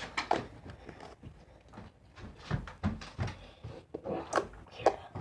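Overactivated slime being squeezed and pulled by hand, giving off irregular small clicks and snaps with a few soft thuds.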